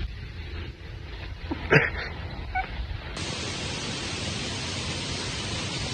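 Outdoor ambience: a low wind rumble with one short vocal exclamation about two seconds in, then, after an abrupt cut about three seconds in, a steady even hiss.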